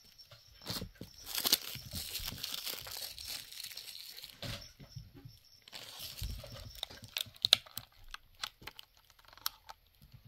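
Clear plastic packaging on a magnetic eyelash case being handled and pulled away. A long crinkling, tearing rustle starts about a second in, followed by scattered sharp plastic crackles and clicks.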